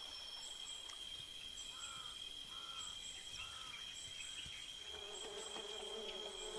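Faint natural ambience of insects: a steady high insect drone with pulsing higher trills, three short chirps about two to three seconds in, then from about five seconds in a low, steady buzzing of a flying insect.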